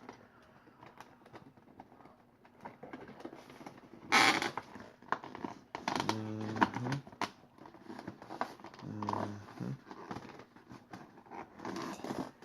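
Toy packaging being handled and opened: scattered crinkles and clicks of cardboard and plastic, with a loud rustle about four seconds in. Two short wordless vocal sounds break in a little later.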